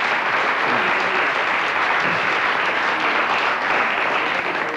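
Studio audience applauding steadily, dying down at the very end.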